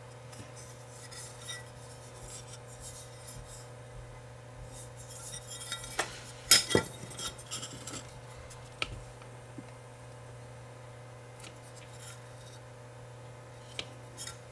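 Handling noise of a Wi-Fi booster's circuit board and its heat-sink bracket: faint rustling, then a few sharp clicks and knocks about six to seven seconds in and one more click a couple of seconds later, over a steady low hum.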